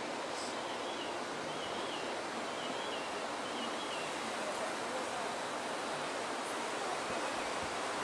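Steady rushing of a waterfall, with a bird singing several short, wavering high phrases in the first half.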